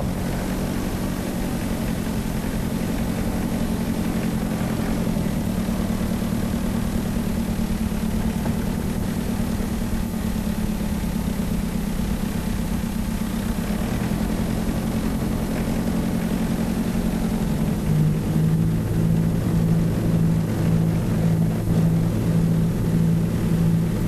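Tractor engine running steadily under load in the hayfield, a low even hum. In the last few seconds the engine note takes on a regular pulsing beat.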